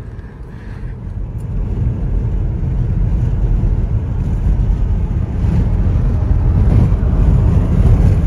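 Moving car's road and wind noise, picked up near an open side window: a steady low rushing noise that grows louder over the first several seconds.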